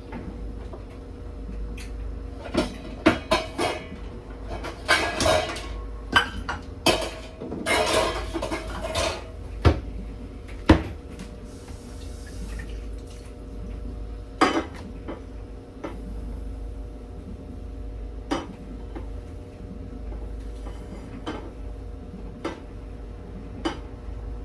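Pots, pans and metal utensils clattering and clinking as they are handled in a kitchen. A busy run of knocks and rattles in the first half is followed by occasional single clinks over a faint steady hum.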